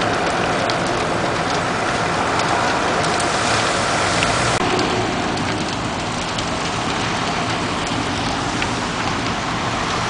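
A fully involved house fire burning with a dense, rain-like crackling hiss, over the steady running of a fire truck's engine. The mix shifts abruptly about four and a half seconds in.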